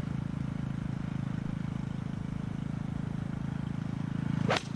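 A steady low mechanical hum throughout, then, about four and a half seconds in, a single sharp crack as a golf club strikes the ball out of dry, leafy rough: a committed full swing.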